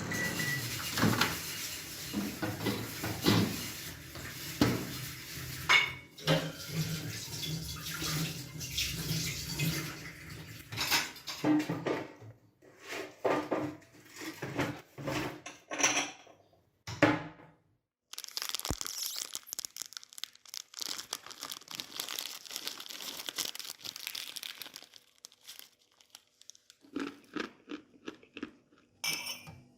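Kitchen Foley: dishes, pots and cutlery clinking and clattering in a string of separate knocks. About two-thirds through there is a stretch of several seconds of steady hiss, followed by more scattered clinks.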